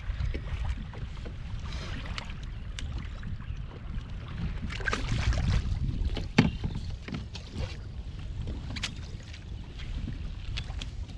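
Wind buffeting the microphone and water lapping against a kayak hull on choppy water, with scattered clicks and knocks; the sharpest knock comes about six seconds in.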